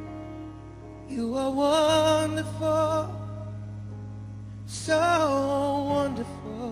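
Worship song: a singer holds two long, wavering phrases over sustained chords and a steady low bass note.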